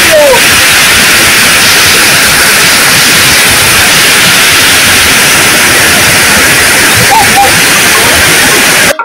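Nile river rapids and waterfall: loud, steady rushing of white water, with a few faint short whistle-like glides over it. It cuts off suddenly at the very end.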